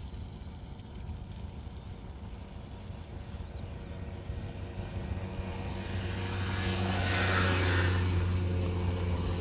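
A motorbike passing on a wet road: its engine hum grows louder from about halfway through, and tyre hiss rises to a peak about three quarters of the way in, over a low rumble of wind.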